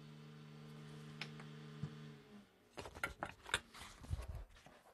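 Hard plastic 3D-printed parts handled and pressed together on a worktop: two light clicks, then a quick run of clicks and knocks near the end. A steady low hum stops a little over two seconds in.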